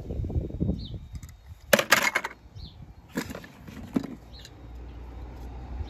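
Hollow plastic ball-pit balls rustling and clattering as a hand digs through them, with a loud burst of clatter about two seconds in and single knocks near three and four seconds.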